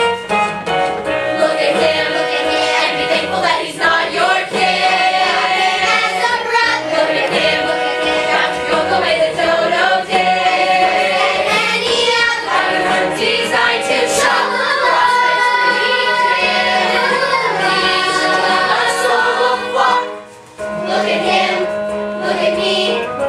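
Children's chorus singing a musical-theatre song over instrumental accompaniment, with a brief break about twenty seconds in.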